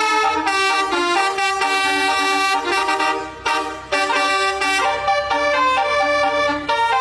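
Basuri telolet multi-tone horn playing a melody: a run of held horn notes stepping from pitch to pitch, with a short break about three and a half seconds in.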